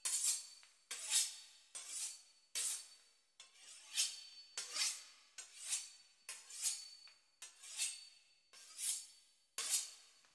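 A knife sawing through the crisp pastry crust of a beef Wellington: repeated short rasping strokes, a little more than one a second.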